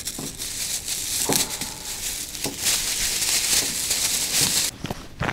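Plastic bag rustling and crinkling as it is handled, with a few light knocks, stopping abruptly near the end.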